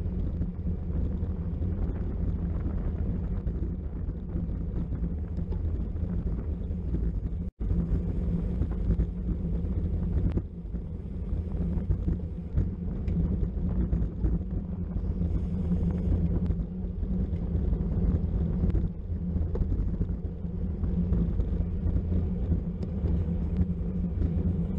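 Wind buffeting the microphone of a camera on a bicycle moving at race speed, a steady low rushing that briefly cuts out about seven and a half seconds in.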